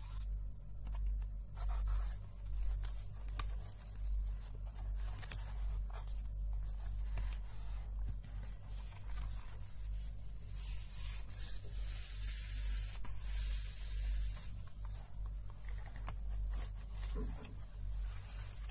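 A palm and fingers brushing and rubbing across a sheet of paper close to the microphone, a dry swishing hiss that swells and fades with each stroke, with a few small ticks. A steady low hum runs underneath.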